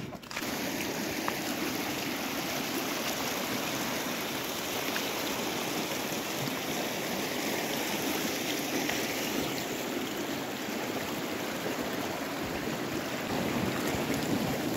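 Fast-flowing open water of the partly frozen Zanskar River rushing past the edge of the ice shelf: a steady, even rushing that cuts in abruptly right at the start.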